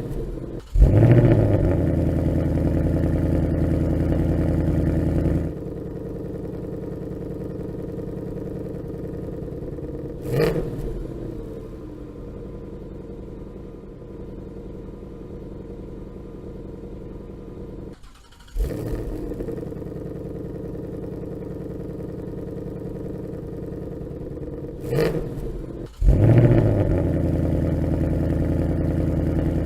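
2018 Ford Mustang GT's 5.0-litre V8 being started several times. About a second in it fires with a sharp flare into a loud idle, then a few seconds later settles to a quieter steady idle with a brief blip of revs. It shuts off and restarts twice in the second half, the last start again flaring into a loud idle.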